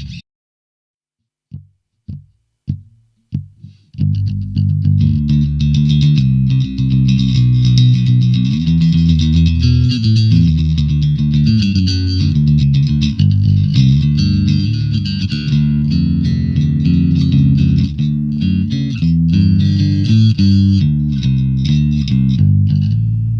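Sadowsky Metroline MV4 four-string electric bass: a few short, separate plucked notes, then from about four seconds in a continuous line of bass notes played without a break.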